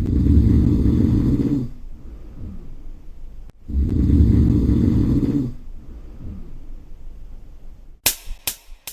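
A person snoring: two long, loud, rasping snores with softer breaths between. Near the end, a sharp crack that repeats several times as a fading echo.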